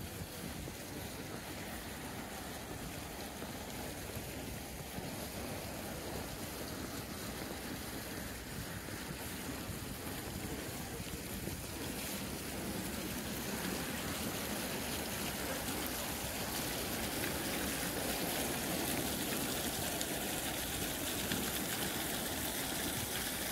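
Steady rushing noise with no distinct events, growing a little louder about halfway through.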